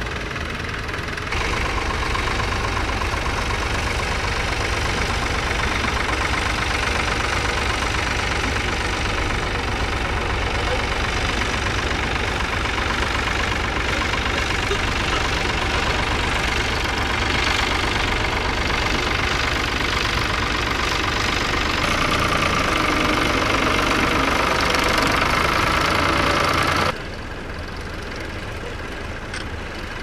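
Vintage farm tractor engines running steadily as they plough. The sound steps up in level about a second in and drops suddenly near the end.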